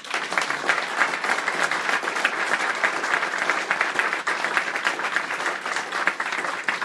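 Audience applauding: many hands clapping at once in a dense, even stream of claps, starting sharply.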